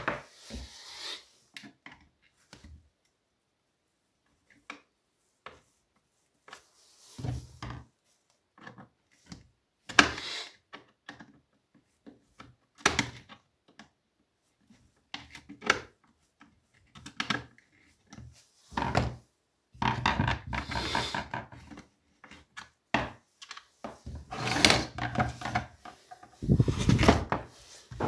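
Scattered knocks, clicks and rubbing as a Partner 410 chainsaw's plastic housing and hand tools are handled on a workbench during disassembly, with longer bouts of clatter in the second half.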